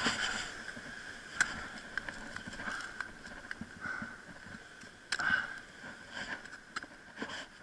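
Sparse clicks and scrapes of ice-climbing gear (ice axe, rope, crampons on ice) close to a body-worn camera, over a faint steady hiss; the loudest knock comes about five seconds in.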